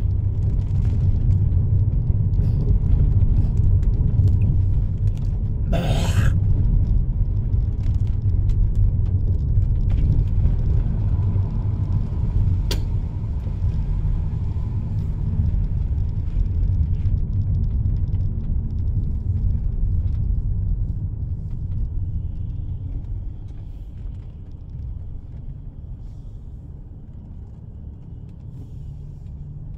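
Steady low rumble of a moving car heard from inside the cabin, tyre and engine noise on a wet road. About six seconds in there is a brief burst of noise, and the rumble grows quieter over the last several seconds.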